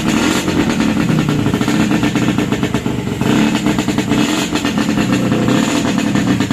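Freshly rebuilt Yamaha RX-King two-stroke single-cylinder engine running, with a fast, even exhaust beat; the level drops briefly about three seconds in, then picks up again.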